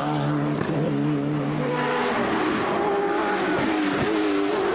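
Hillclimb race car engine running at steady high revs through a corner, its note changing about two seconds in.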